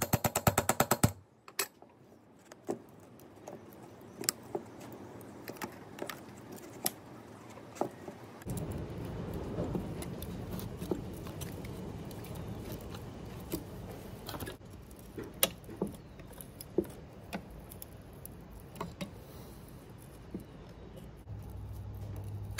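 Steel pry bar tapped with a hammer into the seam of a Saab 9-3 2.8 alternator's case to split its halves apart. A fast run of metallic taps in the first second, then scattered single taps and clinks every second or so.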